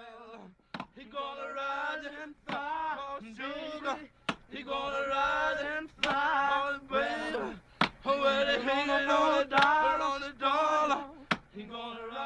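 Men's voices singing a song recorded in a Southern penitentiary, with a sharp strike landing about every two seconds, about seven times, in time with the singing.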